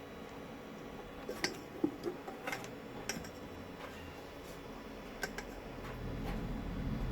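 A few light clicks and taps, typical of small tools and electronic parts handled on a repair bench, bunched in the first half, with a low steady hum coming in near the end.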